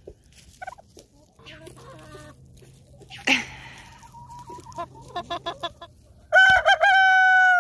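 Backyard hens clucking and making short calls, then a rooster crows near the end: one long, steady crow, the loudest sound here.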